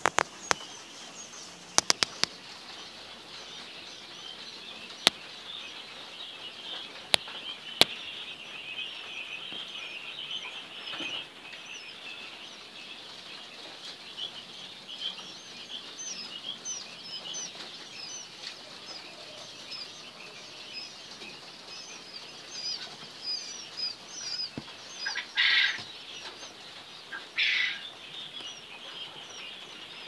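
Many newly hatched quail chicks peeping continuously among their eggs, a dense stream of short, high chirps. A few sharp clicks come in the first several seconds, and two louder half-second sounds near the end.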